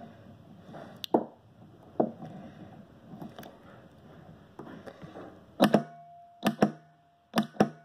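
Homemade spot welder running off car batteries through a solenoid, firing: sharp snaps as the electrodes weld nickel strip onto a lithium battery cell. A few are spread out, then a quick run of loud snaps comes in the last three seconds, with a faint steady tone between them.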